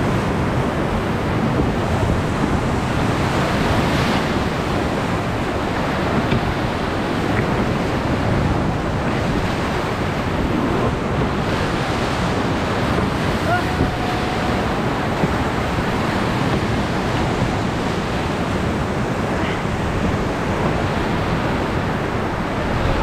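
Whitewater of a big Colorado River rapid rushing and churning around a raft, a steady loud roar, with wind buffeting the microphone.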